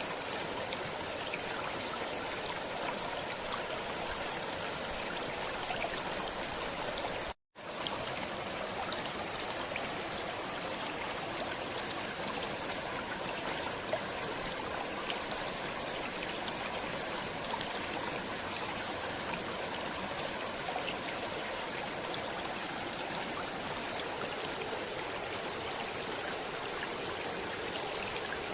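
Water of a flowing stream, running and trickling steadily, with a split-second cut to silence about seven seconds in.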